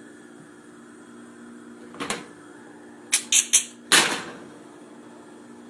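A few sharp clacks and knocks, a stiff cosplay armor piece being handled over a gas stove burner and knocking against the grate: one knock about two seconds in, then three quick clacks and a louder knock just under a second later. A steady low hum underneath.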